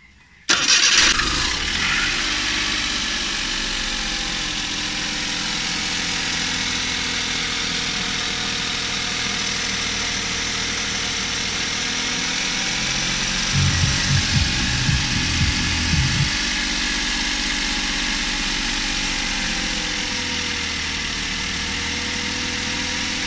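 Suzuki K6A 660cc three-cylinder engine starting about half a second in, then idling steadily. There is no rattle from the belt tensioner: its bearing has just been replaced with a new one, and the engine is quiet. A few low thumps come partway through.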